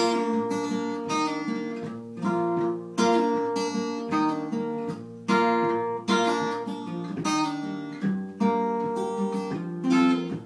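Acoustic guitar played alone in an instrumental passage: chords strummed every second or two, each ringing out and fading before the next.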